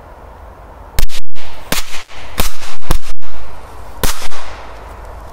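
Five-bang firecracker going off: five loud sharp bangs spread over about three seconds, starting about a second in, loud enough to overload the recording.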